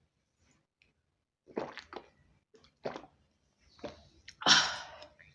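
A person hiccuping, several short sharp hiccups with pauses between them. The loudest and longest comes about four and a half seconds in.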